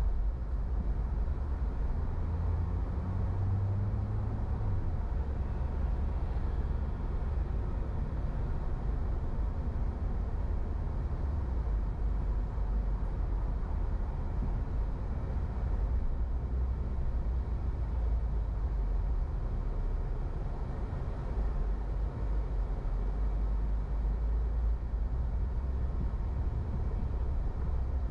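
Steady low rumble of a car driving through city traffic, engine and tyre noise. An engine note rises a few seconds in.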